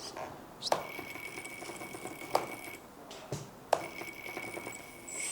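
Small hydraulic pump of an RC excavator whining in two spells as the boom cylinder is worked to push the air out of it, with three sharp clicks, the loudest sounds, about a second and a half apart.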